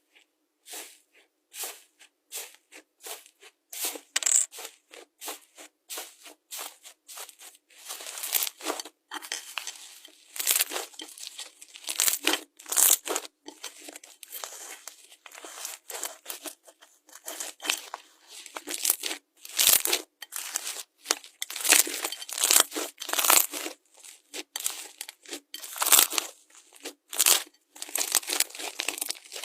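Slime being squeezed and worked by hand, giving a run of quick, irregular crackling and popping bursts that grow denser and louder after the first several seconds.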